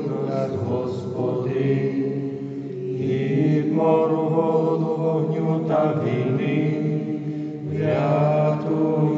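Voices singing a slow, chant-like church hymn in long held notes that shift from one pitch to the next.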